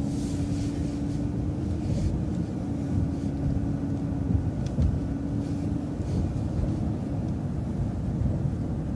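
Interior of an MCO ViewMaster coach bus under way: a steady low engine and road rumble, with a steady hum that fades out about six seconds in.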